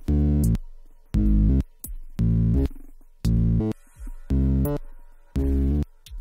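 5U modular synthesizer playing a slow sequenced bass line: about one note a second, each cut off after about half a second, the pitch changing from note to note, with short percussive clicks between the notes.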